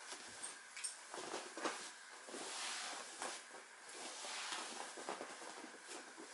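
Hands and body shifting and sliding on vinyl-covered folding gym mats: irregular rustling and soft knocks, with a couple of brief high squeaks about half a second in.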